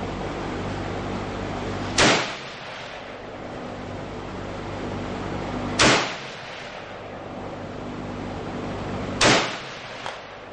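Yugoslavian M59/66 SKS semi-automatic rifle firing three single 7.62×39 mm shots, about four and then three and a half seconds apart. Each is a sharp crack with a brief echo trailing it.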